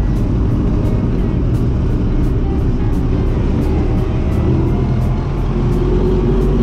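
MTZ Belarus 892 tractor's four-cylinder diesel engine running steadily while driving, heard from inside the cab.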